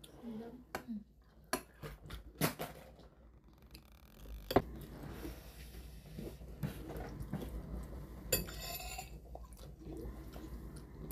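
Metal spoons clinking and scraping against stainless steel bowls of soup. The clinks are scattered, with the loudest one about four and a half seconds in.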